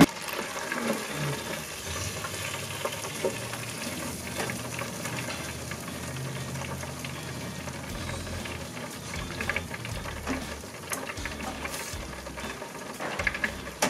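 Hot deep-fryer oil sizzling and crackling steadily around a wire basket of just-fried chicken as it drains.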